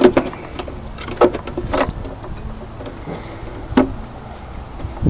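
Plastic parts of a pickup's parking-light assembly being pried and worked loose by hand: four sharp clicks and knocks over a steady low hum.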